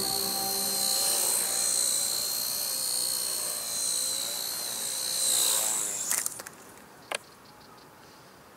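Blade Nano CP X micro RC helicopter flying: a steady high whine from its electric motor and rotor blades over a hiss. It swells briefly, then cuts off about six seconds in, followed by a few clicks and a single sharp tick.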